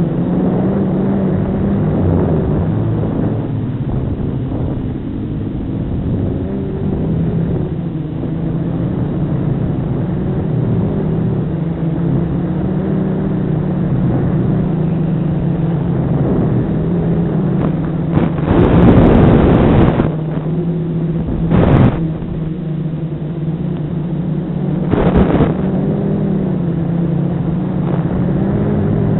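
FPV quadcopter's brushless motors and propellers whining steadily, the pitch wavering up and down with the throttle. Three loud rushes of noise break in, the first and longest about two-thirds of the way through, the others shorter a few seconds later.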